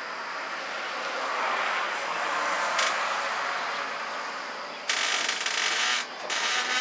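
A vehicle passing by, its rushing noise swelling and fading, followed near the end by two sudden bursts of loud rushing noise.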